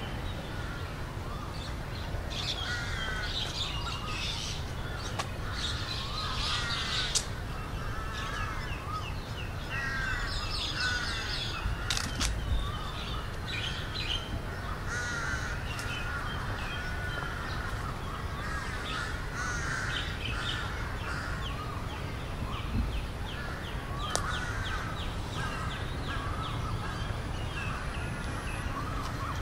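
A crowd of birds calling over one another without pause, with many short rising-and-falling calls and quick runs of repeated notes. An occasional sharp click cuts through.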